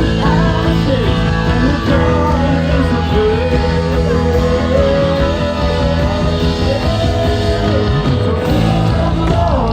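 Rock-style music with a singing voice holding a long melodic line over steady bass and guitar.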